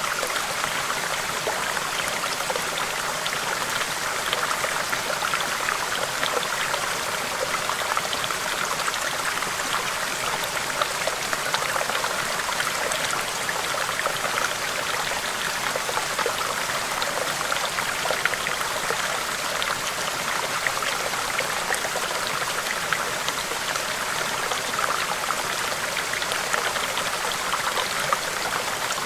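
Shallow stream babbling over rocks: a steady rush of flowing water with many small splashes and droplets.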